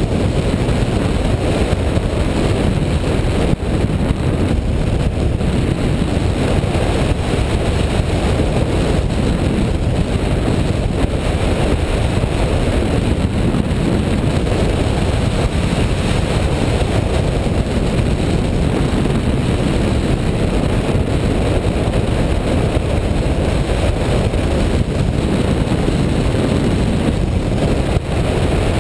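Steady wind noise from airflow over a hang glider's wing-mounted camera microphone in flight: an even, low rush with no breaks.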